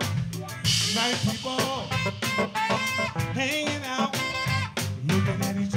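Live funk band playing: drum kit, bass, electric guitars, Hammond organ and saxophone, with a man singing lead, heard as a soundboard mix.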